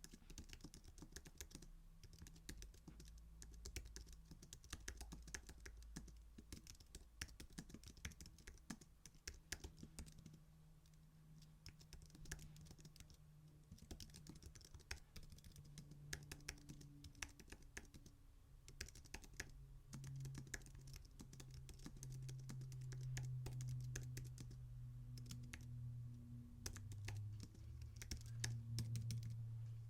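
Continuous typing on a computer keyboard: a dense, irregular run of faint key clicks, part of a keyboard sound test.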